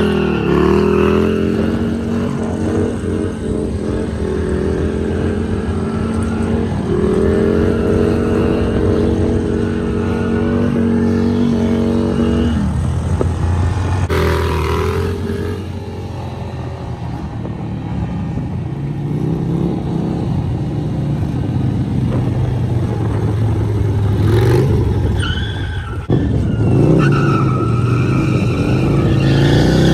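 Harley-Davidson V-twin motorcycle engine held at high revs while the rear tyre skids on asphalt in donuts. The engine note stays steady for the first dozen seconds or so, then drops lower and rises and falls.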